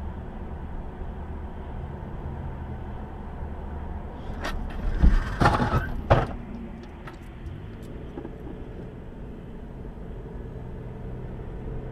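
Steady in-car road and engine noise picked up by a dashcam while driving, with a short cluster of sharp knocks and clatter about four to six seconds in, the loudest part.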